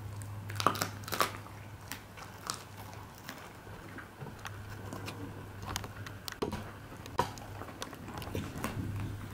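A border collie chewing a homemade dried duck-neck treat: irregular crunching and cracking of the neck bones, with a few louder cracks.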